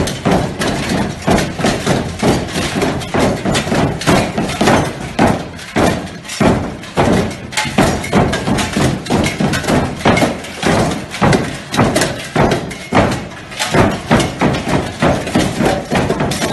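Sicilian pupi marionettes in armour fighting a sword duel: metal swords and armour clashing and clattering, with heavy thumps on the stage boards, about two strong strikes a second.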